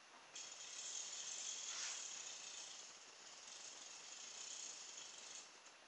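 Small toy car's electric motor and gears whirring faintly as the car creeps along, running off a 2.7 volt, 5 farad supercapacitor charged from a potato battery, with barely enough power to move it. The whirr starts suddenly about a third of a second in and fades out near the end.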